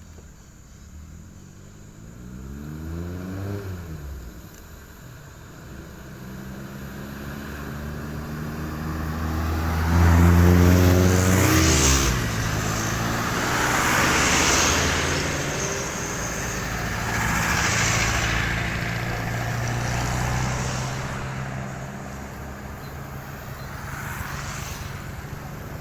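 Motor vehicles driving past on the road, each engine's pitch dropping as it goes by. The loudest passes about ten to twelve seconds in, followed by a steadier engine sound that slowly fades.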